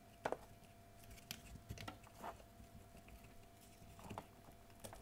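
Faint, scattered plastic clicks and scrapes as a snug wiring-harness connector is pried off a GM P11 powertrain control module with a small pry tool.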